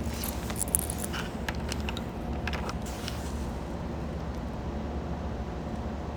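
Steady low hum of an airbrush compressor running, with light clicks and taps of handling during the first three seconds.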